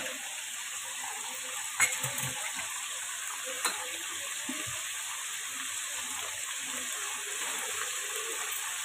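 Hot oil sizzling steadily in a pan as whole spices, onion and masala fry. A perforated metal skimmer gives a couple of light clicks against the pan, about two seconds in and again near four seconds.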